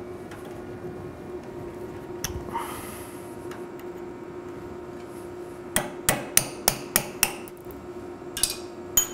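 Hammer striking a pin punch to drive 5/32 roll pins out of a gearbox's screwdriver chucks. It is a quick run of about six sharp metallic taps, roughly three a second, starting a little past halfway, then a few lighter taps near the end.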